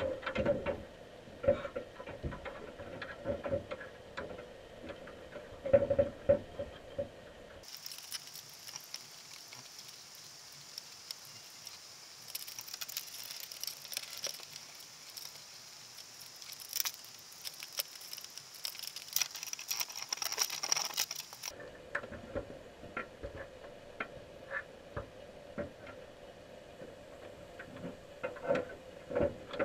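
Underwater sound on the sea floor: irregular sharp clicks and crackles over a steady low hum. The loudest clicks come right at the start and about six seconds in. From about eight seconds in until about twenty-one seconds the hum drops out abruptly and a high hiss with denser crackling takes its place.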